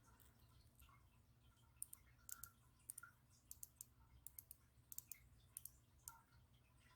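Faint, sharp clicks and clinks of small metal jewelry pieces, such as a watch and its band, knocking together as they are handled. There are about a dozen, some in quick pairs, starting about two seconds in.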